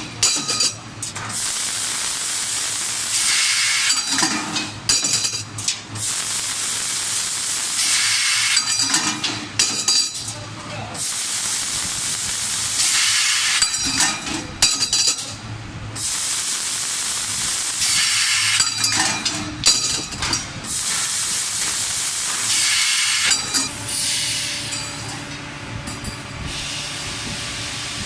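Laser pipe cutting machine cutting a thin-walled welded tube: the cutting head hisses in stretches of a few seconds, broken by short breaks about every four to five seconds. Near the end the hiss drops and a steady machine hum takes over.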